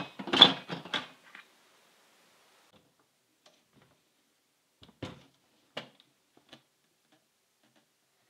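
Instant Pot lid clattering as it is set and turned on the cooker's stainless-steel body in the first second or so. After a quiet stretch come two short knocks about five and six seconds in, and a fainter one just after, as the cooker is turned and lifted on the table.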